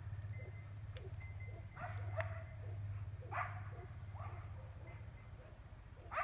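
Dogs barking over and over, a bark about every second, above a steady low hum.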